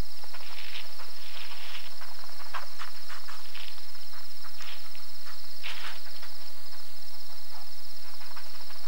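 A steady, high, finely pulsed cricket trill, with scattered light rustles and ticks of a mouse moving through dry twigs and sand.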